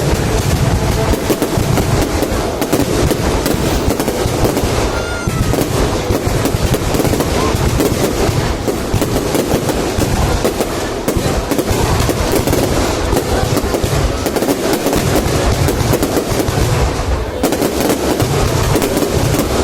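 Aerial fireworks display: a dense, continuous barrage of bangs and crackles with no pause.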